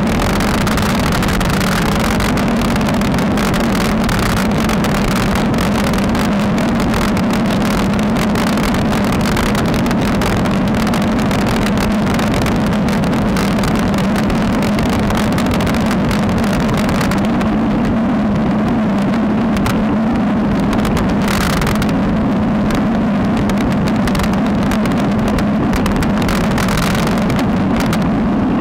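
Wind and road rumble on a bicycle-mounted action camera's microphone while riding a road bike at speed: a loud steady rush with a low drone underneath. The hiss thins out a little after about two-thirds of the way through.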